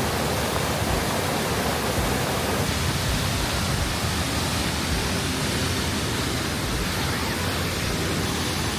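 Stream water rushing steadily where it starts down into a waterfall, an even, unbroken hiss.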